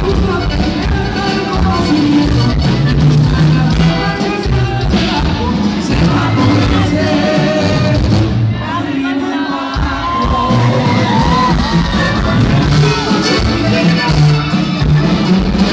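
Loud live regional Mexican band music: singers over tuba bass, drums and congas, with shouting from the crowd. The bass and drums drop out briefly a little past the middle, then come back in.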